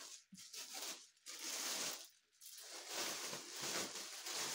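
Clear plastic wrap crinkling and rustling as it is pulled off an electric scooter, in two irregular spells with a short lull about two seconds in.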